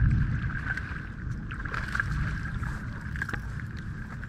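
Wind rumbling on the microphone, loudest right at the start, over a steady high whine and a few small clicks.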